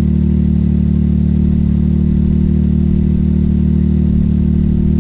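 Can-Am Maverick X3 Turbo's turbocharged three-cylinder engine idling steadily at about 1500 rpm, heard from inside the cab.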